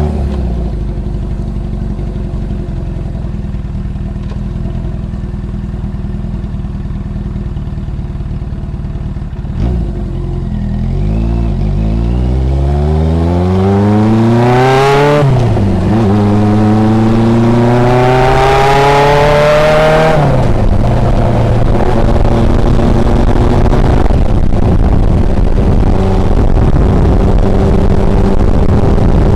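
Suzuki GS750 air-cooled inline-four running through a homemade 50 mm silencer while riding, loud with a deep low note. It runs steadily at first, then about halfway in it revs up, drops sharply at a gear change, revs up again, shifts again and settles into steady cruising.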